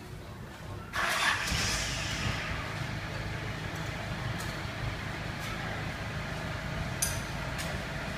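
Engine running steadily with a low rumble, coming in abruptly about a second in.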